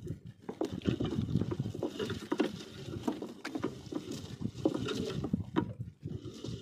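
Wet gill net being hauled aboard a wooden fishing boat by hand: an irregular pattering of dripping water with many light knocks of net and catch against the hull.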